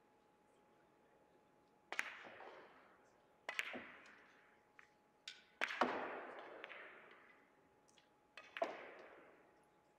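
Sharp clacks of Russian pyramid billiard balls and cue on ball, about five of them, each ringing on in the hall's reverberation; the loudest comes about six seconds in.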